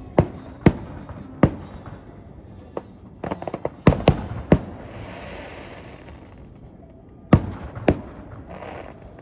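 Fireworks bursting overhead in a string of sharp bangs at uneven intervals. Around the middle comes a quick cluster of small pops, then the three loudest bangs, followed by a second or so of crackling hiss.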